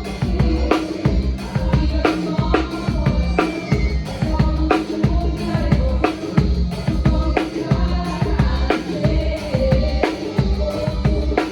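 Sonor drum kit played in a steady groove: kick drum, snare and cymbals hit in a regular rhythm, with other pitched instruments and a steady bass sounding behind the drums.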